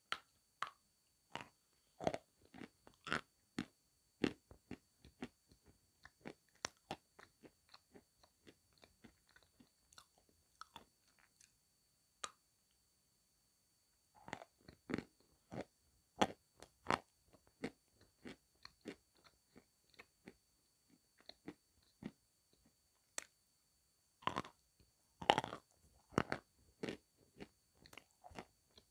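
Sevryukovsky natural chalk crunching as chunks of it are bitten and chewed: a long run of crisp cracks and crumbling clicks. Louder clusters of bites come about halfway and again a few seconds before the end.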